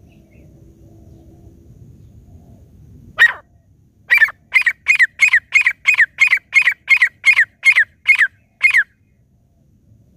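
Grey francolin calling: a single sharp note about three seconds in, then a run of about a dozen loud, evenly spaced notes, roughly three a second, each falling in pitch, which stops near the end.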